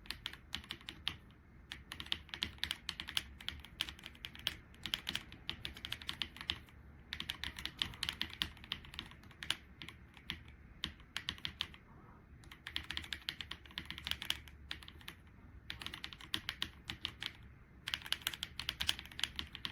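Typing on a Keychron C3 Pro mechanical keyboard with Keychron Super Red linear switches and double-shot PBT keycaps: quick runs of keystrokes in bursts of a few seconds, with short pauses between them.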